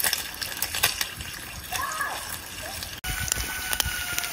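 Slices of meat frying in oil in a pan on a portable camp stove: a steady sizzle with scattered crackles and pops.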